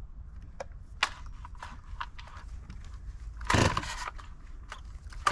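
Clicks and knocks of a chainsaw being handled, then about three and a half seconds in a single short pull on the starter cord. The engine catches right at the end.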